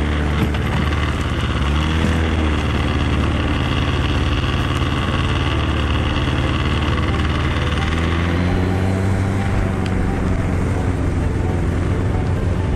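Snowmobile engine running under way, towing a sled over a snow track; its pitch rises and falls as the machine speeds up and eases off, with a climb about two-thirds of the way through.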